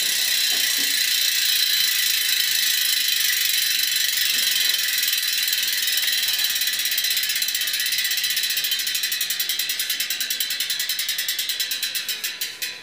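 Cycletrack CK-042 rear hub's three-pawl freehub clicking as the wheel coasts: a fast, continuous high-pitched buzz that slows into separate clicks over the last few seconds as the wheel winds down, dying out near the end.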